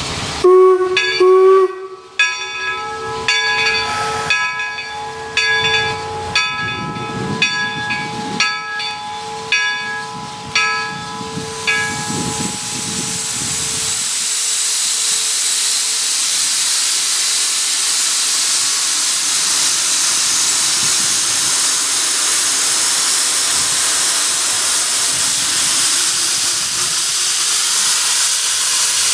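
Steam locomotive whistle blowing for about twelve seconds, several tones sounding together over a run of sharp regular beats. It gives way to a steady loud hiss of steam being vented.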